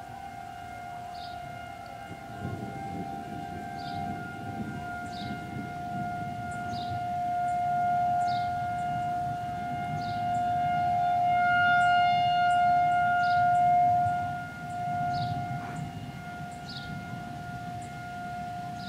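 Federal 2001 tornado siren sounding its steady alert, one unbroken tone that swells louder and fades as the rotating siren head turns toward and away. It peaks past the middle, then drops off sharply.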